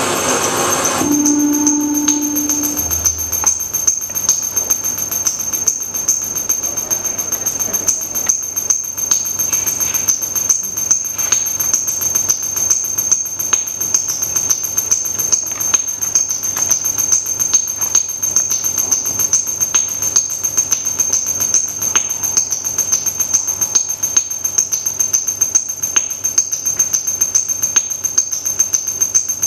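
Electronic noise music from handmade synth circuits played through a small mixer and speaker: a steady high whine under a dense, irregular crackle of clicks and pops. A low hum and a middle tone stop about three seconds in.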